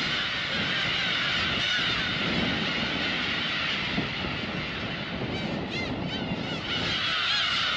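Black-tailed gull colony calling: many gulls mewing and crying over one another in a steady, dense din. A few closer, clearer calls stand out around six seconds in.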